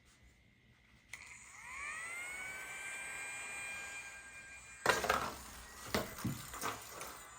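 The small electric fan motor of a toy air hockey table whines up to speed about a second in, then runs with a steady hum. From about five seconds in, a series of sharp plastic clacks and knocks comes over it, typical of mallets and puck striking.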